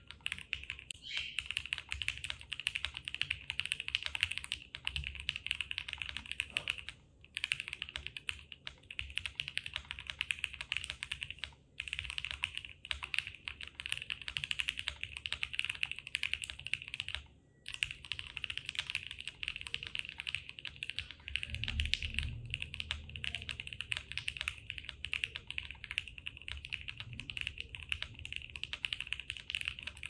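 Typing on a Monsgeek M1 aluminium mechanical keyboard fitted with lubed Gateron Milky Yellow Pro linear switches, modded stabilizers and CRP Cyrillic R3 keycaps. It is a dense, steady run of keystrokes with brief pauses about seven, twelve and seventeen seconds in.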